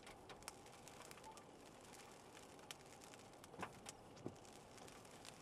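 Faint, irregular ticks of raindrops landing on the car's body and windshield, over a low steady background hum.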